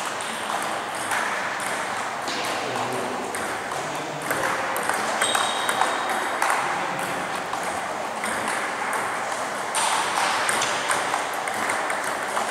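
Table tennis rally: the ball clicking sharply off the bats and the table in quick, irregular succession.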